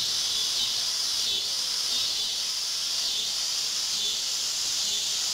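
Steady, unbroken high-pitched drone of a summer insect chorus in swamp woodland.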